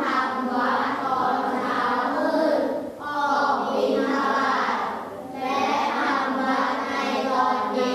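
A class of primary-school children reading a Thai passage aloud in unison, a sing-song chorus of many voices, with short breaks between phrases about three and five seconds in.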